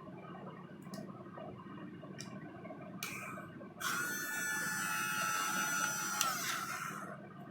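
Electric drill triggered briefly a few times, then run for about two and a half seconds with a steady high whine that winds down near the end.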